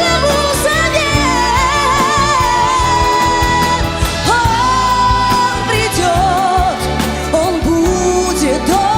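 A pop-symphony orchestra playing, with a female vocalist singing long held notes with vibrato over a steady bass and drum beat.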